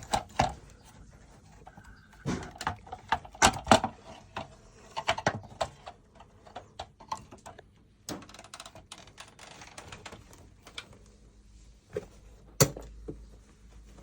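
Irregular clicks, taps and knocks of hard parts being handled and fitted, with one sharper knock near the end.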